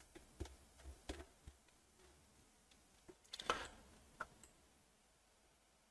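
Faint computer mouse clicks, a handful scattered over a few seconds in a quiet room, with one short soft noise about three and a half seconds in.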